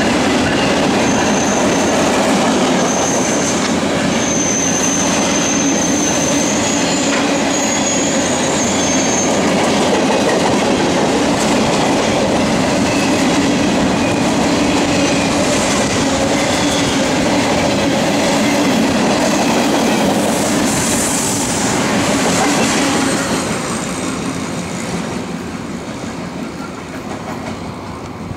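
Freight cars loaded with trash containers rolling past on steel rails, a dense steady rumble and clatter of wheels on track, with a thin high wheel squeal in the first several seconds. The noise fades away from about three-quarters of the way through as the end of the train passes and recedes.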